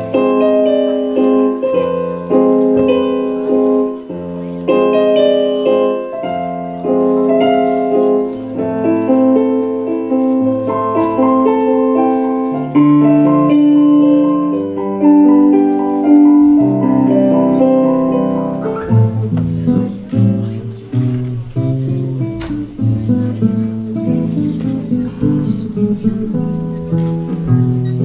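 Electronic keyboard playing a piano melody over sustained chords. About two-thirds of the way in it gives way to a nylon-string classical guitar, plucked.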